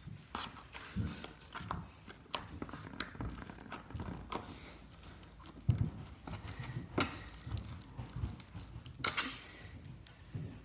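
Hands kneading and squishing sticky homemade glue slime: irregular small clicks, pops and soft thumps as it is pressed and pulled.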